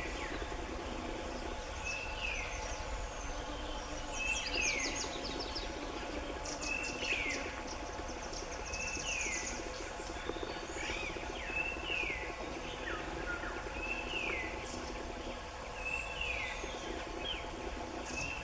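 Forest birdsong: one bird repeats a two-part call about every two seconds, a short high note followed by a falling whistle, while other birds chirp higher up. A steady insect drone runs underneath.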